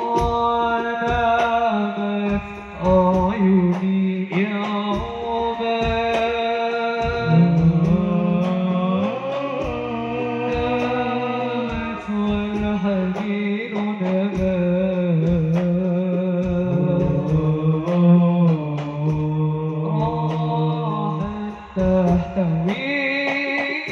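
A male munsyid singing a sholawat line through a PA, drawing out long notes that bend and waver, with hand-drum strokes beneath.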